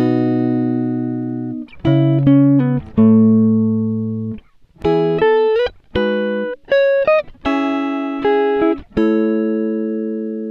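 Background music: a guitar playing plucked notes and chords, each ringing out and fading before the next.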